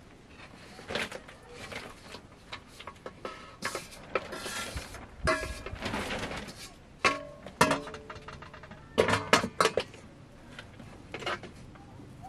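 Steel mixing bowl clanking and ringing as raw potato slices are tipped and scraped out of it into a plastic colander, with sharp metallic knocks, the loudest near the end.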